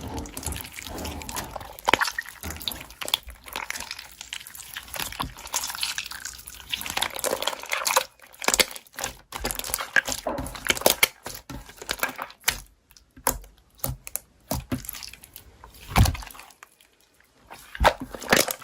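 Slime being squished and pressed by hand, with a run of irregular wet, sticky clicks and pops and short pauses between squeezes.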